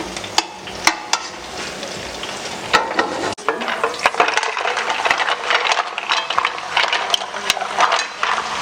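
Oil sizzling in a frying pan as the mussel sauté of garlic, parsley stems and Thai chilies is stirred, with frequent clicks and clinks of the utensil against the pan.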